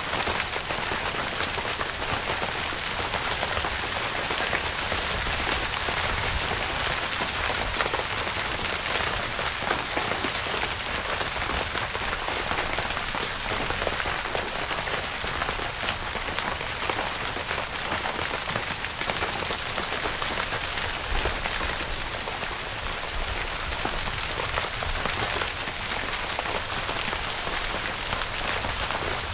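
Steady rain falling on a tent's fabric: a dense, even hiss of countless small drop impacts.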